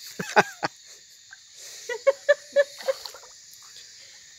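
Steady high insect buzz, with a brief voice-like cry just after the start and a quick run of about six short, evenly spaced pitched calls about two seconds in.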